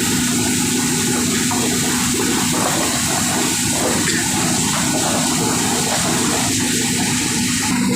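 Carrot washing machine running, with water rushing and splashing steadily over a constant machine hum.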